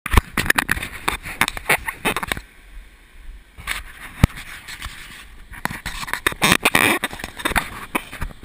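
Handling noise on a handheld camera being carried by someone walking: irregular knocks and scrapes, thick at first, sparser through the middle, then thick again.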